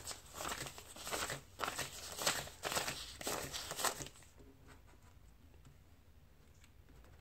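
Paper US dollar bills being counted by hand: a run of quick rustling swishes as notes are flipped and laid down one after another, stopping about four seconds in.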